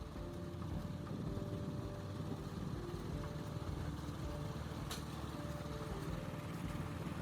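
Factory machinery running with a steady low rumble, under quiet background music with held notes. A single sharp click about five seconds in.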